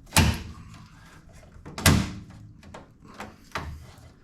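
Plastic lower grille being pressed into place on a truck's front end, its clips snapping in: two loud sharp knocks a little under two seconds apart, then a couple of softer ones.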